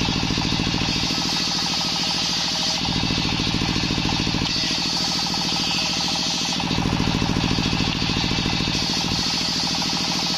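Belt-driven table circular saw running steadily, its large blade ripping waru (sea hibiscus) planks into strips. The pitch and hiss of the cut swell and ease every few seconds as each plank is pushed through and the blade runs free again.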